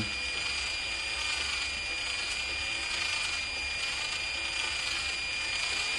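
Cordless drill running slowly and steadily with the trigger only lightly pressed, turning a subwoofer voice-coil former as copper wire is wound onto it; a steady high whine from the drill motor.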